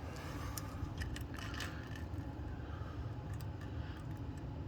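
A few light clicks and scrapes of small hard pieces being handled by hand: engine parts and crumbled plastic debris by the oil pump. The clicks come mostly in the first two seconds, over a steady low hum.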